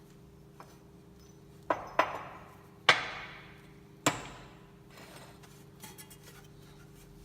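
Four sharp metal-on-metal clanks, each ringing briefly, with a few light clicks afterwards, as steel parts and a spacer are set up to press in a new hub bearing.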